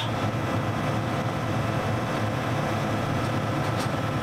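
John Deere S780 combine's diesel engine running steadily with a low, even drone.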